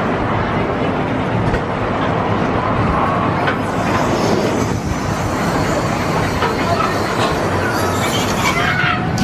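Steel roller coaster car climbing a vertical lift hill and running on its track: a steady loud clattering rattle, with a few wheel squeals near the end.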